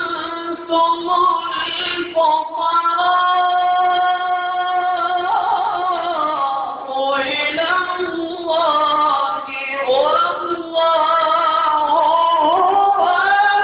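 A man reciting the Quran in the melodic, ornamented style into a handheld microphone. He holds long drawn-out notes and slides through winding pitch runs between them.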